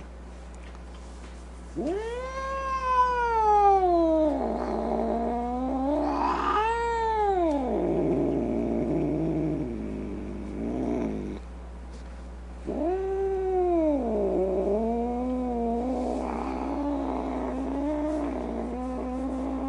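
Domestic cat yowling: long drawn-out wails that rise and fall in pitch, two near the start and a long wavering one from about two-thirds of the way through, with a lower, rougher growling stretch in between.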